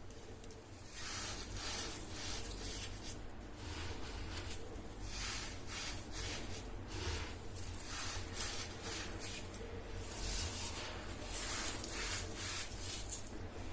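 A crunchy, crumbly material being crushed and crumbled by hand at close range: irregular bursts of crunching and crackling that start about a second in and keep coming, some louder than others.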